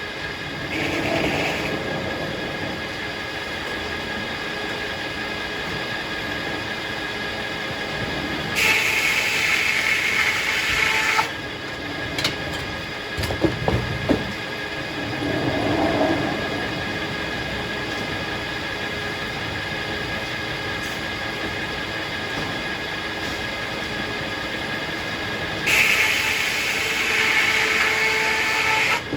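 Circular sawmill running steadily, growing louder and brighter twice for about three seconds each, about a third of the way in and near the end, with a few sharp knocks just after the first louder stretch.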